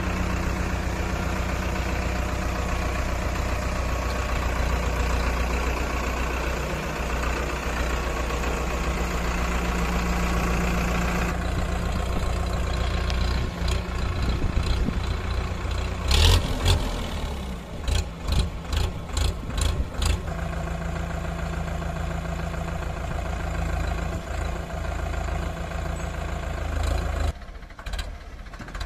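Powertrac Euro 55 tractor's diesel engine running steadily. About two-thirds of the way through there is a short run of sharp knocks and clatters, and near the end the sound suddenly gets quieter.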